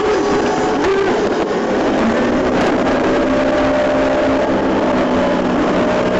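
Rescue boat's motor running steadily under way, heard from aboard over a loud rush of wind and water. Its pitch shifts slightly about two seconds in.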